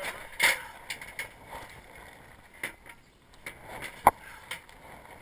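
Scattered knocks and clanks on an aluminium extension ladder, with a sharp metallic knock about four seconds in.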